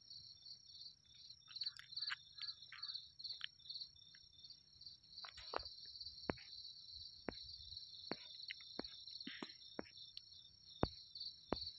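Faint, steady chirping of crickets, a rapid pulsing high trill, with a few short, sharp clicks from about five seconds in.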